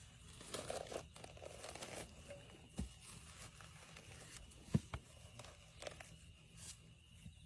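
Faint rustling and crinkling handling noise, with scattered small clicks and two sharper soft knocks, about three and five seconds in.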